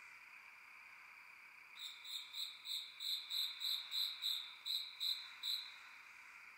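Cricket chirping: about a dozen short, clear, high chirps, roughly three a second, starting about two seconds in and stopping shortly before the end. A steady faint high hiss sits beneath them.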